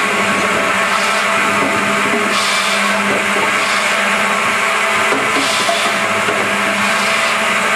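DS-33 double-saw firewood processor running, its twin 700 mm stellite circular saw blades spinning with a steady whine. Every second or two a short hiss of sawing rises over it as logs are cut through.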